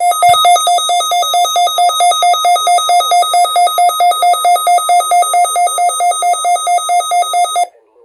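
Midland S.A.M.E. weather alert radio's alarm beeping rapidly and loudly, about five beeps a second, then cutting off sharply near the end. It is the radio's alert for a received Required Weekly Test.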